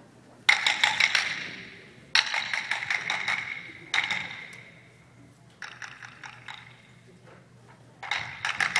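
An unconventional percussion group playing handheld objects in short bursts of rapid clicking strikes, about every two seconds, five times. Each burst has a high ring that dies away.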